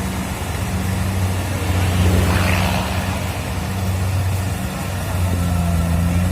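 Kubota DC-70 Plus rice combine harvester's diesel engine running, a steady low hum. About two seconds in, a brief rushing noise rises over it.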